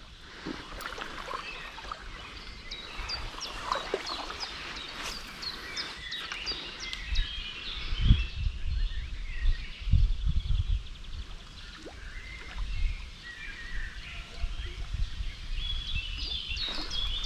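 Songbirds chirping and singing over the steady rush of a river, with a few dull low thumps about eight and ten seconds in.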